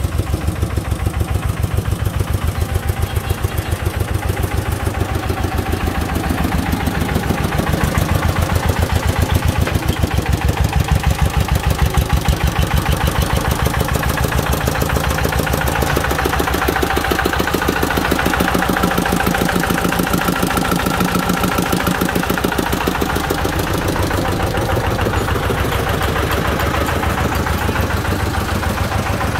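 Công nông farm truck's single-cylinder diesel engine running steadily, a rapid even chugging that carries on throughout. A higher tone sits over it in the second half.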